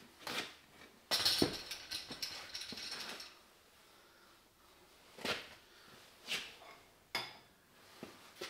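Metal parts of an old Weiler lathe clattering and ratcheting as they are worked by hand, a rattle of about two seconds. A few separate clicks and knocks follow.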